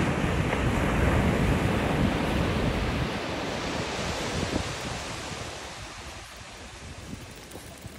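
Ocean surf washing on a beach, with wind buffeting the microphone; the wind gusts are strong at first and ease off after about half the time.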